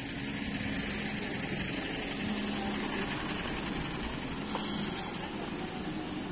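A motor vehicle engine running steadily, its low hum fading about four seconds in over a steady background rush.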